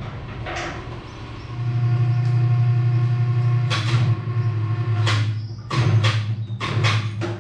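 Electric chain hoist motor running in short spurts with a steady hum, lifting a steel loader bucket, with a few metal clanks from the chain and bucket.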